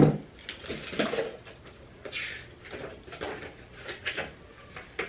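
Cardboard box and paper insert being handled: a series of irregular rustles and light knocks.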